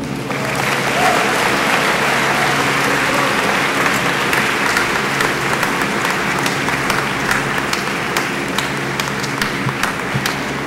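A large audience applauding, a dense, steady clapping that eases slightly near the end.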